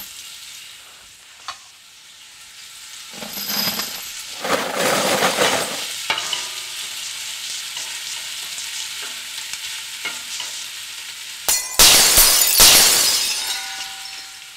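Chopped onion sizzling as it sautés in a hot stainless steel pot, stirred with a spatula. The frying hiss swells loudly twice, about four seconds in and again, loudest, about twelve seconds in.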